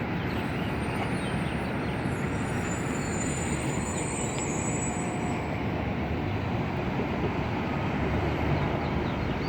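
Steady hum of city traffic below, an even low rumble with no distinct events.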